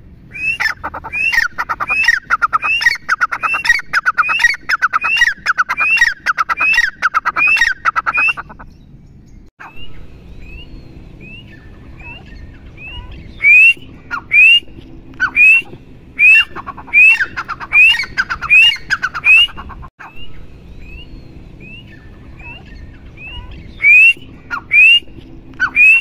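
Grey francolin calling: a loud series of sharp, rising notes repeated about twice a second, breaking off after a few seconds and starting again. Between the loud runs the same call comes more faintly.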